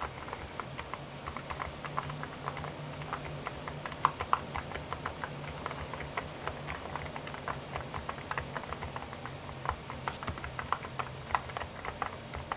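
Typing on a GUTS STELLA87 full-aluminium custom keyboard: a continuous run of keystrokes, several clicks a second.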